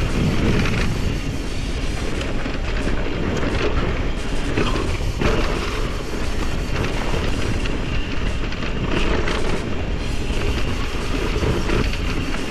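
Mountain bike rolling down a rough dirt trail: a steady rumble with rattling from tyres, chain and frame, and wind buffeting the microphone.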